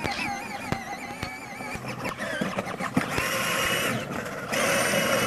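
Peg Perego ride-on toy tractor, its 6-volt drivetrain run on a 12-volt battery, driving along: electric motor and gearbox whine wavering with speed, over clicks and rattles. About three seconds in a louder hissing grind comes in, briefly drops out, then returns louder as the hard plastic wheels roll on asphalt.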